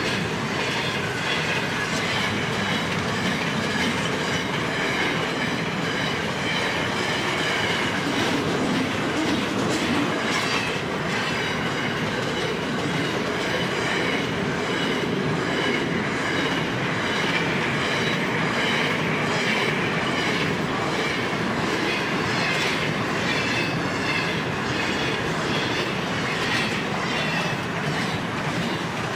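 Container wagons of a long freight train rolling past at speed: a steady rush of steel wheels on rail with a rhythmic clatter over the rail joints.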